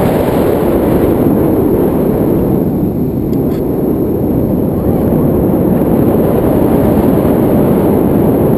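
Wind rushing over a handheld camera's microphone as a tandem paraglider flies: a loud, steady low rush with no break.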